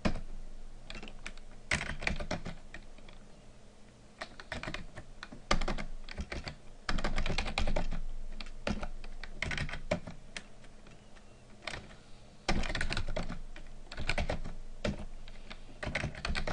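Computer keyboard being typed on, keystrokes clicking in short bursts with pauses between them as commands are entered.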